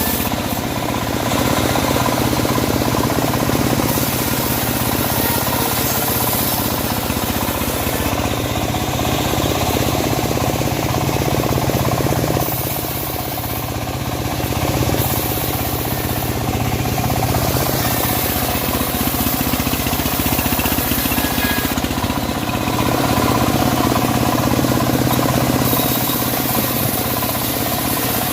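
Homemade engine-driven bandsaw sawmill running steadily while sawing teak logs. It eases off briefly about halfway through, then picks up again.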